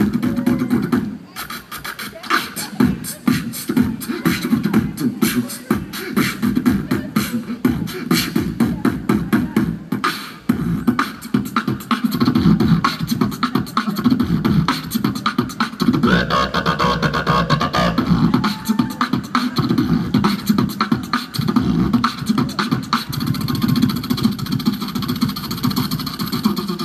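Solo beatboxing through a PA system: one man making fast, rhythmic kick, snare and hi-hat sounds with his mouth, in the style of a DJ with turntables and a mix board, over a low bass. About sixteen seconds in, a held pitched vocal tone rises over the beat for a couple of seconds.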